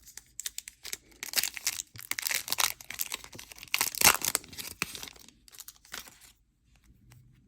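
A trading card pack's plastic wrapper being crinkled and torn open: a run of crackling and tearing that is loudest about four seconds in and stops near the end.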